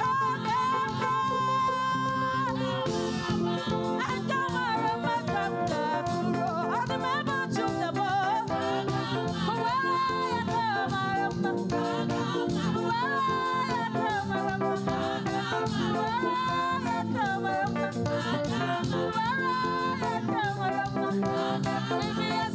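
Gospel praise singing: a lead voice sings over a live band with steady rhythmic percussion.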